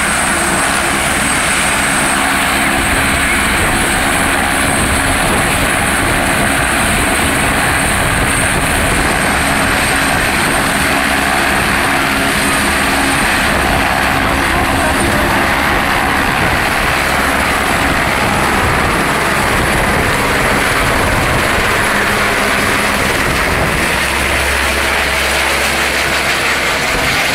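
Police helicopter running loud and steady, its rotor and turbine noise unbroken throughout.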